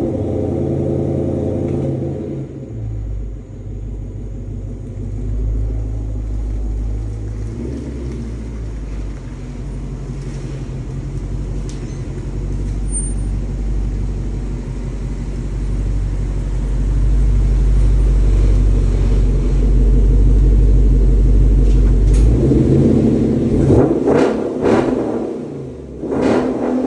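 1999 Mazda Miata NB's engine and exhaust under way, the car accelerating with the engine note building steadily. The engine eases off about 22 seconds in, followed by a few louder surges near the end.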